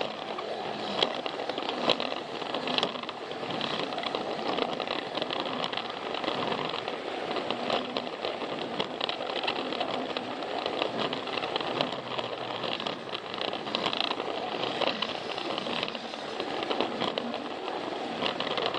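Plarail toy train running along plastic track: its small battery motor and gears whir steadily, with many sharp clicks and rattles from the wheels and the track joints.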